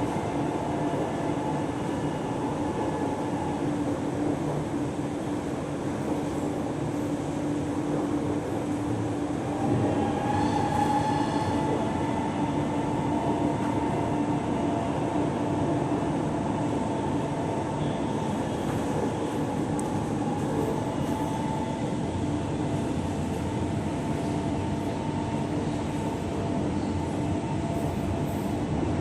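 Lucknow Metro train running, heard from inside the carriage: a steady rumble with a humming whine that shifts in pitch about ten seconds in.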